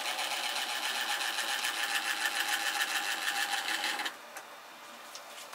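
Blade-height adjustment handle of a DeWalt cordless table saw being cranked to raise the blade: a rapid, even mechanical clicking that stops about four seconds in.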